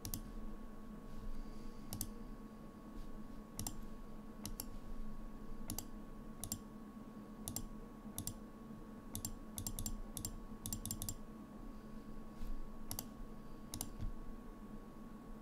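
Computer mouse clicking: irregular single clicks with a few quick runs of two or three, over a faint steady electrical hum.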